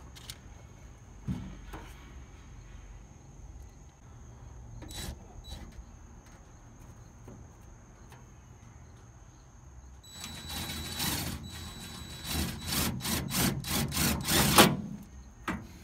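Cordless DeWalt drill driving through metal license plates into a pickup's bed rail. It starts about ten seconds in, runs for a second or so, then comes in a quick run of short bursts before stopping near the end. Before it there are only a few faint clicks.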